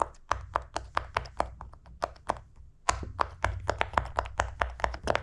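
Silicone pop-it fidget toy bubbles pressed one after another with a finger: a quick series of sharp pops, about four or five a second, with a short break a little past two seconds in.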